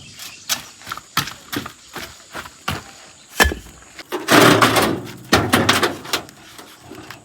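Hollow concrete bricks being unloaded: a string of sharp knocks, with two longer scraping clatters of block on block a little past the middle.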